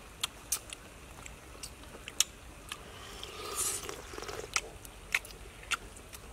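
Spoons clicking and scraping against coconut-shell bowls in a scattering of sharp ticks, with a slurp of soup about three and a half seconds in.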